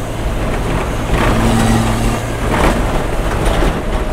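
BMW 525 TDS 2.5-litre straight-six turbo diesel running under way, heard inside the car's bare metal cabin, with two brief swells in the noise.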